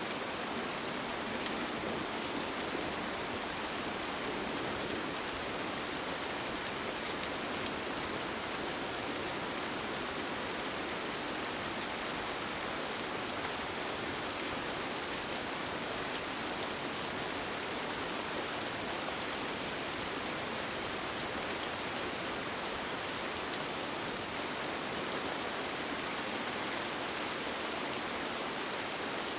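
Steady rain falling on a tent, an even hiss with scattered individual drops ticking through it.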